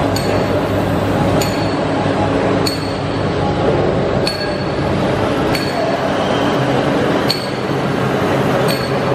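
Four-colour web flexo printing press running, printing paper-cup stock: a steady mechanical hum with a light metallic clink repeating about every second and a half.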